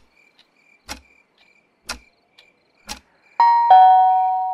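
Wall clock ticking about once a second over crickets chirping, then a two-note ding-dong doorbell chime near the end, the second note lower and ringing on as it fades.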